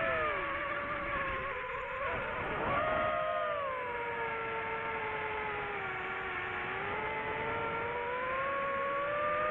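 DJI FPV drone's motors and stock propellers whining in flight, the pitch rising and falling with the throttle. It dips about two seconds in, jumps up sharply near three seconds, sinks slowly, then climbs again toward the end.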